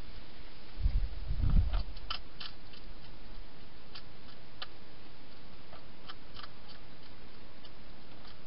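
Hedgehog eating dry food inside a plastic feeding box: scattered sharp crunching clicks every second or so, with a couple of low thumps about a second in, over a steady hiss.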